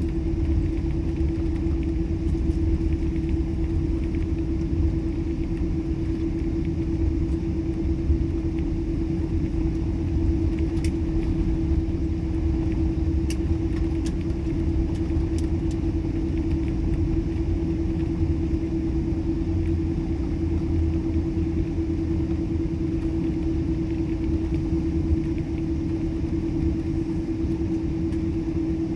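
Airliner cabin noise while taxiing after landing: a steady low rumble from the engines and rolling gear with a constant hum over it. A few faint ticks come near the middle.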